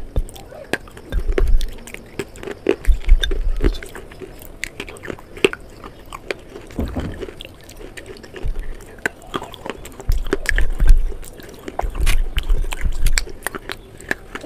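Crunching and chewing of slate bars coated in a creamy clay paste: many sharp, irregular crunches, with clusters of low thudding chews.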